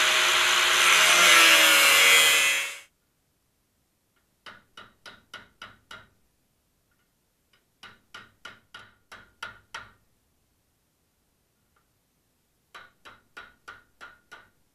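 Angle grinder with a cut-off disc cutting sheet steel, a loud grinding noise with a wavering whine that stops about three seconds in. Then a hammer beats a sheet-metal lip flat over a steel frame rail in three quick runs of seven or eight blows, about five a second.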